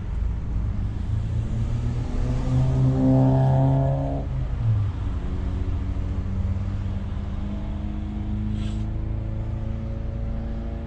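A Renault's engine, heard from inside the cabin, revs up hard for about three seconds and then drops off sharply. It then climbs again slowly. The learner is giving it too much accelerator, as the instructor says.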